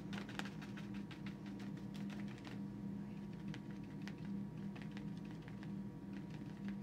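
Paintbrush dabbing up and down on watercolour paper: a quick run of light taps, thinning out after about two and a half seconds, over a steady low hum.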